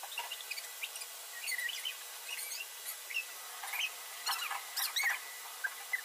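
A shop vac running as a steady hiss, with irregular crackles, ticks and short squeaks as debris is sucked into the nozzle and the nozzle rubs over the car's surfaces.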